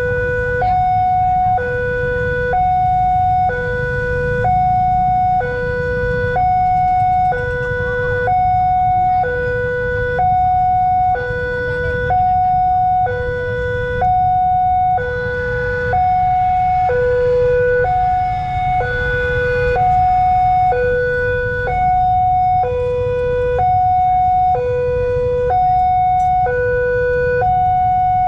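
Railway level-crossing warning siren, alternating steadily between a low and a higher tone, each held about a second, sounding while the barriers are down for an approaching train. A low rumble runs underneath.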